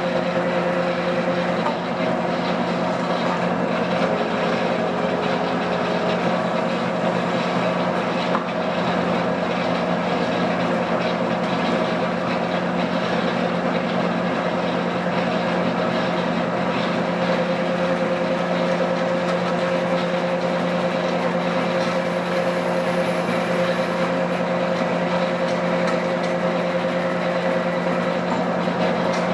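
DoAll C-1212A automated metal-cutting bandsaw running, a steady machine hum with a constant pitch that holds without a break.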